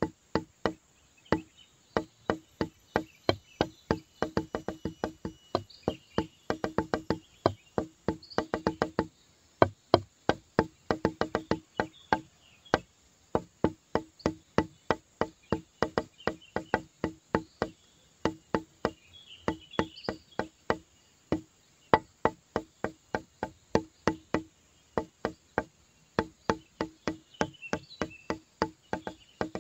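Background music: a light percussive tune of quick, evenly spaced clicks over a repeated low plucked note.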